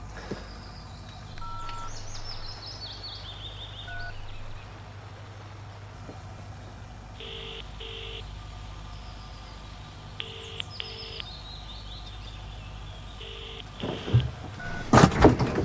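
Mobile phone call being placed. First a run of short electronic beeps stepping down in pitch. Then a British double-ring ringing tone heard faintly through the handset: two short pulses repeated about every three seconds, three times, with no answer. A few louder knocks near the end.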